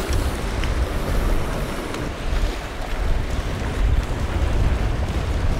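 Wind buffeting the microphone as a low, fluctuating rumble, over the steady wash of sea waves.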